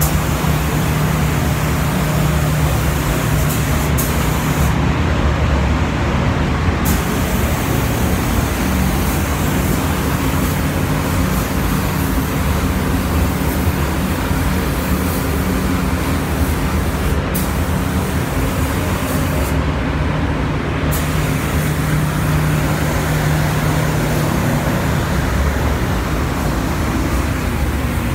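Compressed-air paint spray gun hissing while spraying car body panels, over a steady low hum and rush of air. The high hiss cuts out twice, for about two seconds each time, then starts again.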